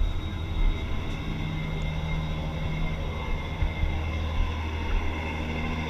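Steady drone of a passenger ferry's engines heard from on board, a low hum with a higher whine above it, with occasional low thumps of wind on the microphone.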